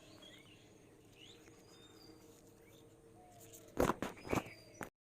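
Faint birds chirping over a low steady hum, then two loud sharp knocks about half a second apart near the end.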